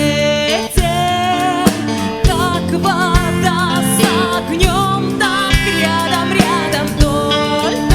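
Pop song: a woman singing a wavering, vibrato melody over an accompaniment of drums and guitar with a steady beat.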